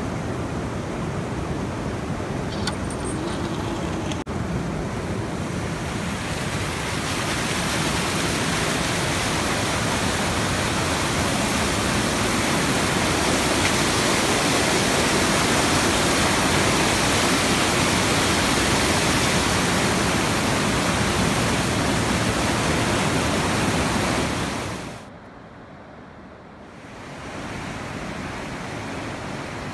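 Water rushing steadily through the opening in a needle dam where needles have been pulled, a continuous wash of falling water. It grows louder several seconds in, drops away for about two seconds near the end, and comes back quieter.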